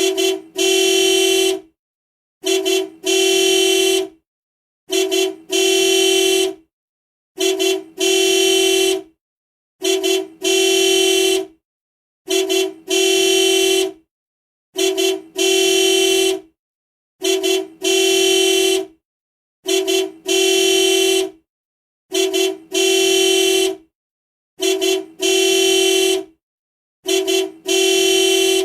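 Car horn honking in a repeating pattern: a short toot followed at once by a longer honk of about a second, on one steady pitch. The pair comes about every two and a half seconds, twelve times over.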